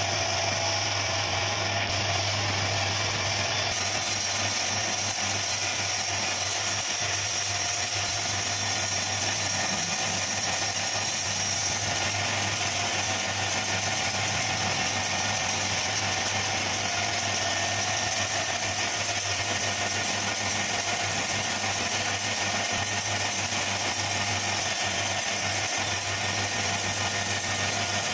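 Wood lathe running steadily with a low, even hum as the spindle turns.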